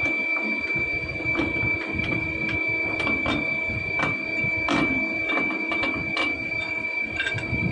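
Steady machine-shop hum with a high whine and a couple of lower tones, over which come scattered light metallic clicks and taps as steel soft jaws are handled in a CNC lathe chuck.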